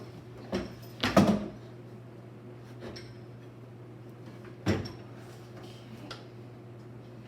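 A few separate knocks and clunks from handling wooden and metal parts at a workbench, the loudest about a second in and another past the middle, over a steady low hum.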